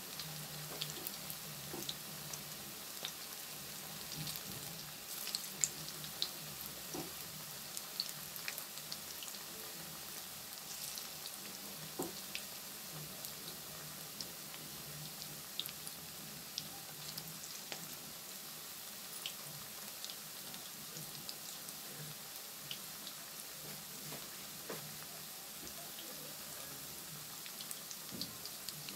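Methi (fenugreek) pakoras deep-frying in hot oil in a kadhai: a steady sizzle with scattered small crackles and pops.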